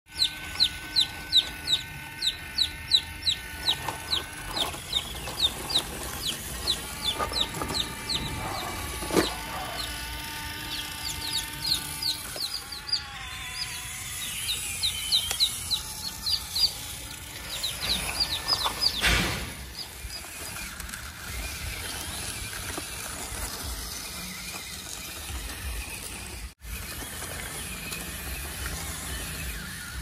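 Chickens peeping in quick, high, falling calls, about three a second, in long runs through the first two-thirds and then stopping, over a steady background noise.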